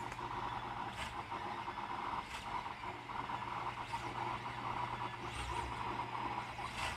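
Monoprice IIIP 3D printer at work: its stepper motors whir as the print head moves, over a steady hum, with a short tick every second or so.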